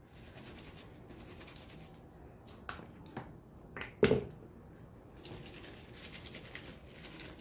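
Cotton dish towel being scrubbed against itself by hand with dish detergent and no water, a soft steady rubbing of soapy fabric. A few short knocks break in around the middle, the loudest about four seconds in.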